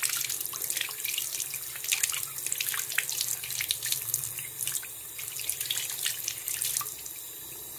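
Bathroom sink tap running, its stream splashing over a toy monster truck held underneath to rinse off its mud coating and running into the basin. It is a little quieter near the end.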